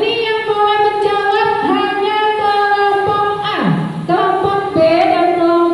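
A high female voice singing a slow melody with long held notes, with one quick falling swoop about three and a half seconds in.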